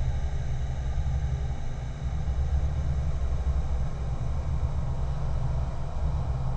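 Dark ambient drone atmosphere: a steady low rumble under an airy, whispery hiss, with the upper layer growing a little brighter near the end.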